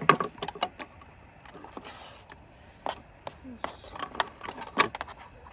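Utensils clinking and scraping against dishes as curry is dished up: a quick run of sharp clicks and knocks, densest at the start and again in the second half.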